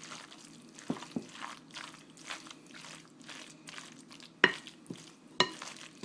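Spoon stirring and tossing dressed, shredded carrot salad in a bowl: a run of wet scraping strokes with a few sharp knocks of the spoon against the bowl, the loudest two near the end.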